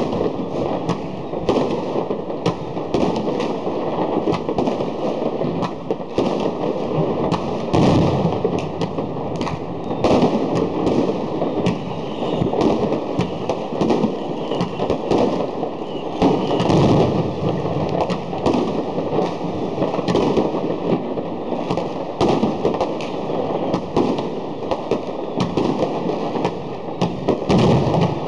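Many fireworks going off at once: a continuous din of crackling and bangs, with louder bursts every few seconds.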